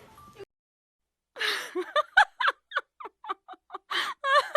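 A person laughing in a quick run of short bursts after a brief silence.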